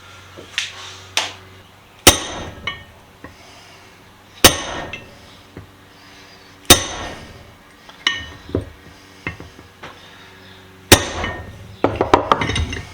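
Brass hammer striking a pin punch to drive a pin into a vise's screw assembly: four loud, ringing metal-on-metal strikes about two seconds apart, with lighter taps between and a quick run of taps near the end.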